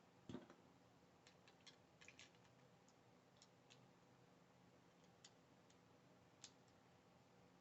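Faint, scattered clicks of small plastic Lego pieces being handled and pressed together, the loudest just after the start, over near silence.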